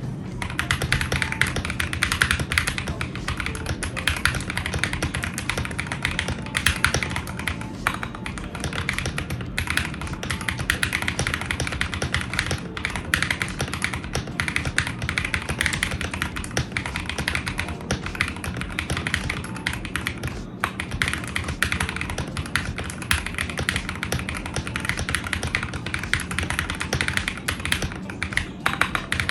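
Fast, continuous typing on a mechanical keyboard fitted with Akko linear switches: a dense, unbroken stream of key clacks.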